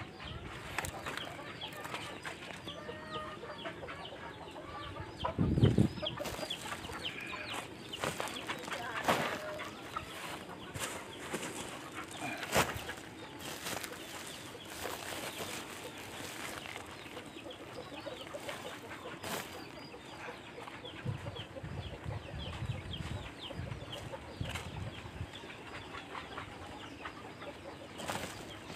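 Woven plastic sacks being handled and rustled, with scattered knocks and one dull thump about six seconds in, against many short bird calls in the background.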